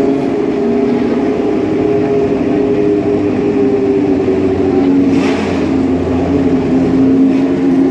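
Ford Cosworth DFV V8 of a 1970s Formula One car running at low, steady revs, its pitch wavering slightly. A brief hiss comes about five seconds in.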